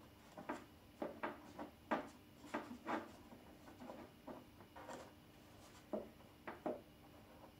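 Light knocks and scrapes of a reindeer antler against the rim of a large wooden turned bowl as it is fitted by hand, an irregular run of about twenty small taps, thickest in the first three seconds and thinning out after, over a faint steady hum.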